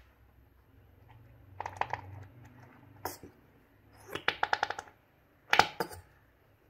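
Squeeze bottle of garlic mayonnaise squirting onto shredded chicken, sputtering in short bursts: a rapid run of about eight little pops about four seconds in, and a louder sputter near the end.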